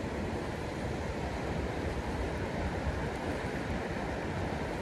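Steady rush of a flowing creek's current.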